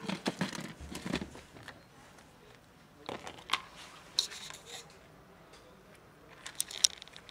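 Clip-lock plastic food container handled and dry cat kibble tipped out into a plastic tray, in short rattling clatters, then a cat crunching the dry kibble in sharp clicks.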